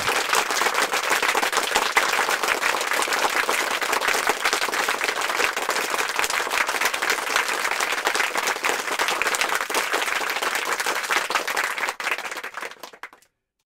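Applause: many hands clapping steadily, fading out about twelve seconds in and then cutting to silence.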